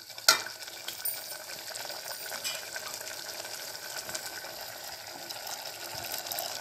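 Potato kurma bubbling steadily in a pot, with a metal spoon clicking once against the pot about a third of a second in as it is stirred. Near the end, water is poured into the curry.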